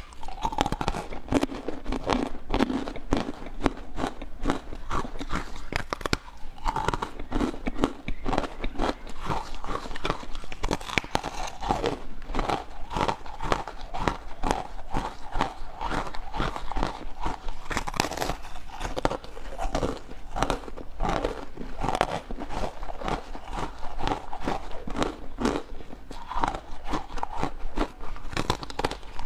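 Close-up eating sounds: ice cream and other frozen desserts being bitten and chewed, with many crisp crunches in quick succession.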